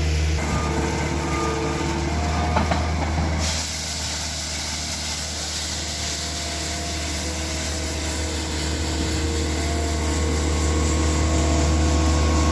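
Engines of road-repair machinery running steadily with a deep hum and hiss. The sound changes abruptly twice in the first few seconds.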